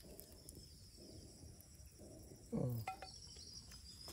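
Steady high-pitched chirring of insects in the background. A brief vocal sound comes about two and a half seconds in, followed by a few faint clicks.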